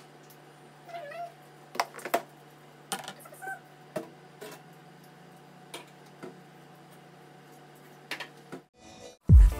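A domestic cat meowing, two short meows about a second in and a few seconds in, among clinks and knocks of kitchen things being handled at the counter and an overhead cabinet door lifting open near the end, over a steady low hum. Loud music with a heavy beat cuts in at the very end.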